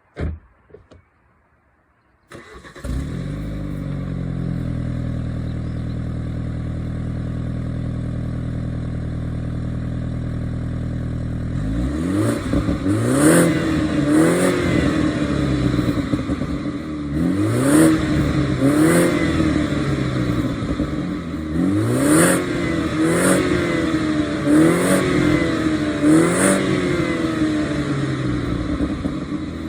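BMW 430i's turbocharged 2.0-litre four-cylinder, in stock form, starting about two seconds in and then idling steadily. From about halfway on it is revved repeatedly, the pitch climbing and falling back about eight times, with sharp cracks as the revs drop.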